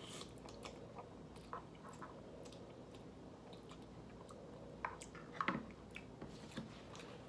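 Faint chewing of a mouthful of instant ramen noodles, with scattered small wet clicks. A few louder light clicks come about five seconds in, as the fork works in the plastic bowl.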